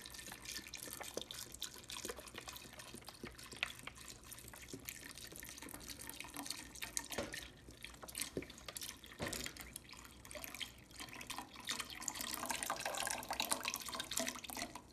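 Vegetable stock pouring from a carton's spout into a pot of diced raw potatoes, a steady liquid pour with small splashes, stopping near the end.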